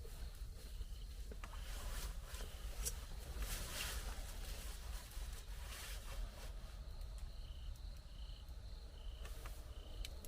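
Jungle insects calling, with a short high chirp repeated evenly about twice a second in the second half, over scattered rustling and clicks.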